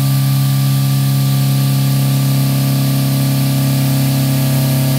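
Kennametal HARVI I TE end mill slotting 316 stainless steel at full engagement in a CNC mill, a loud steady pitched hum of several tones over a constant hiss.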